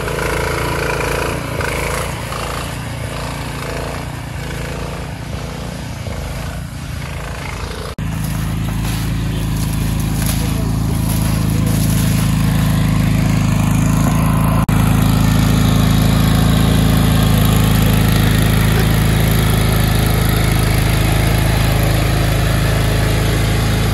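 Small lawn tractor engines running. First an old Cub Cadet garden tractor's engine pulls it along a trail. After a cut about eight seconds in, a louder, steadier riding mower engine takes over.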